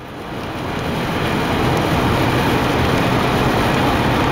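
Steady road and wind noise from a car moving at highway speed, swelling up over the first second and then holding even.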